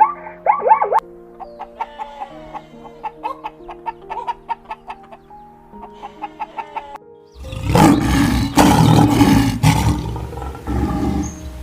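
A quick series of short animal calls, about five a second, then plucked background music, then a loud, rough roar from an animal lasting about three seconds.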